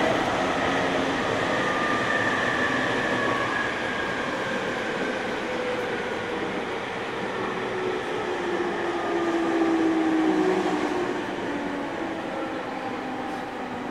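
Onboard running sound of a JR 209 series 500 subseries electric train with a Mitsubishi GTO VVVF inverter: steady wheel-and-track rumble with the inverter and traction-motor whine slowly falling in pitch as the train slows. There is a brief louder swell about ten seconds in.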